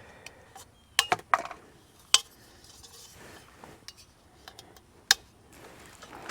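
Metal deer-feeder parts clinking and tapping against each other as they are handled: a few sharp clinks about a second in, one that rings briefly about two seconds in, and another near the end.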